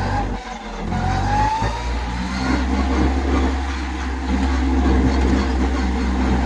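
Kubota A211N compact tractor's three-cylinder diesel engine running steadily as the tractor drives along in high gear, heard from the driver's seat. The engine note dips briefly about half a second in, then gets a little louder after about two seconds.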